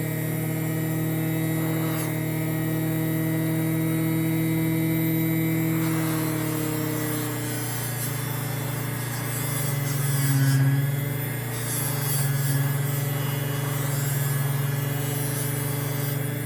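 Electric bench motor running a fiber buffing wheel, a steady hum with several constant tones. About ten seconds in it briefly swells.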